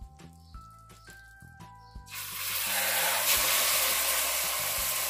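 Soft background music, then about two seconds in a loud sizzle starts as a whole cupim (beef hump) is laid into hot melted margarine in a pressure cooker; the searing sizzle then holds steady.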